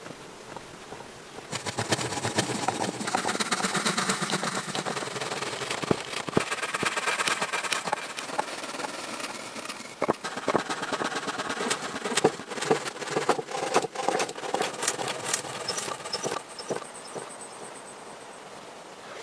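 Handling and cutting of wooden poles: a dense run of knocks, clicks and scraping that starts suddenly about a second and a half in and stops a few seconds before the end.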